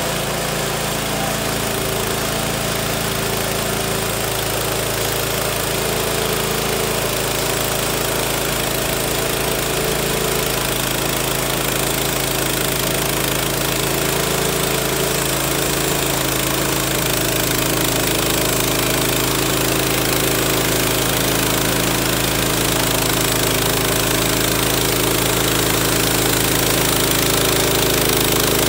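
Woodland Mills HM130MAX portable bandsaw mill's gasoline engine running steadily at throttle, with the band blade turning; it grows a little louder in the second half as the blade works into the log on the first cut.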